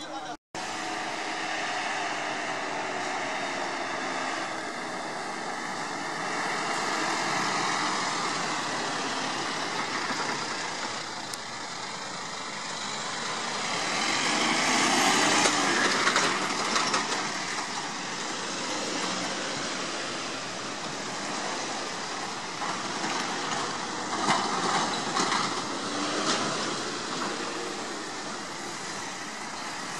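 Street traffic: vans and emergency vehicles driving past, their engines and tyres making a steady noise, loudest as a van passes close about halfway through.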